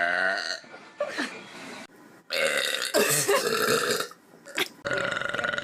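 Loud human burps in a row: one tails off just after the start, a long one fills the middle, and another begins near the end with a fast buzzing rattle.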